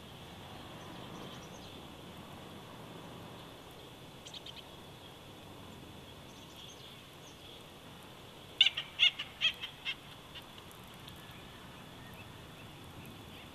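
A bird calls: a brief faint run of high chirps about four seconds in, then a louder quick series of about six sharp high chirps a little past halfway, over a steady outdoor hiss.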